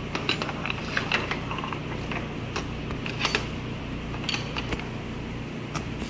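Steel transmission parts clinking and knocking as they are handled on a steel workbench: a scattering of light metal clicks over a steady low shop hum.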